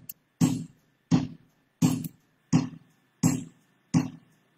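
A steady percussion beat of single hits, about three every two seconds, each a low thud with a hissy top that dies away quickly.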